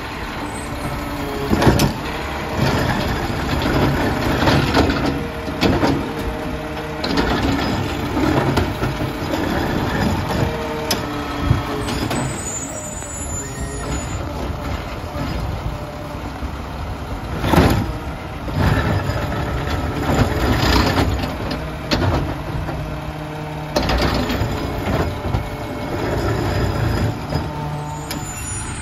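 Mack LR garbage truck with a McNeilus ZR automated side-loader running at the curb while its arm grabs, lifts and empties wheeled carts. Several loud bangs and clatter over the engine's steady rumble.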